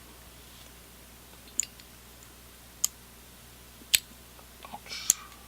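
Sharp metallic clicks from a folding stainless-steel multi-tool being handled, its implements snapping open and shut: four distinct clicks about a second apart, with a few softer ticks near the end.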